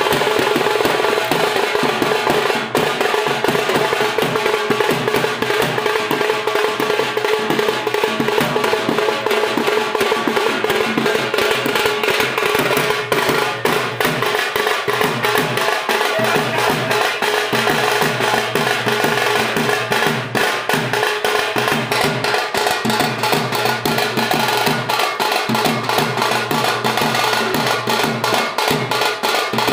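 Dhol and nagara drums played live, beaten in a fast, dense, unbroken dance rhythm.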